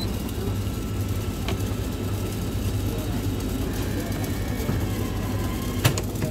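Steady low machinery hum with faint background voices; a sharp knock or click sounds near the end.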